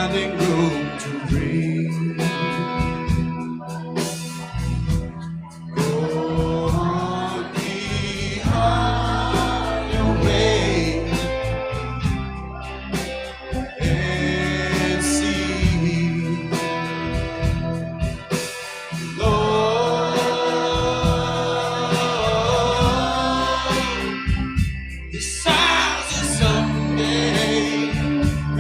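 A band playing a song: a singer's melody over guitar and bass.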